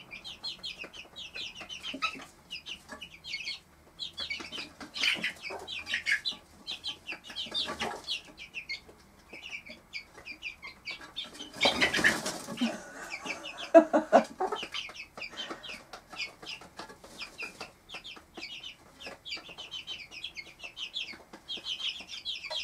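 Four-week-old cuckoo Marans chicks peeping continuously in rapid, high-pitched chirps. About twelve seconds in there is a brief burst of wing flapping, followed by a few low clucks from the mother hen.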